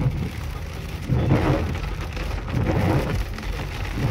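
Heavy rain falling on the roof and windscreen of a moving car, heard from inside the cabin, loud and uneven, with swells of louder pattering.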